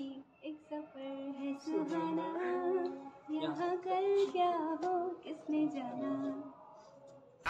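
A young woman singing a short song phrase solo, holding notes that bend in pitch, with brief breaths between lines.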